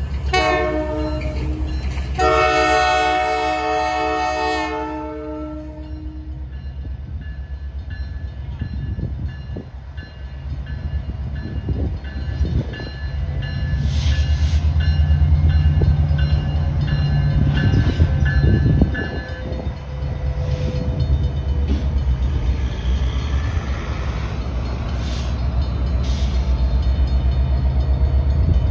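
Canadian Pacific diesel locomotive sounding its multi-note air horn for a grade crossing: a short blast, then a long blast about two seconds in lasting roughly three seconds. After it comes the steady low rumble of the locomotive and freight cars rolling over the crossing.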